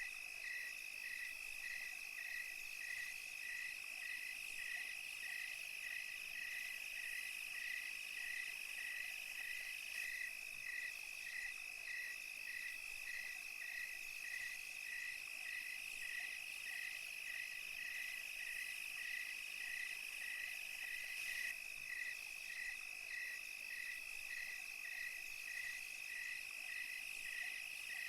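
Night insect chorus: crickets giving a steady high trill, with one chirping in even pulses about three every two seconds, over a fainter high hiss of other insects.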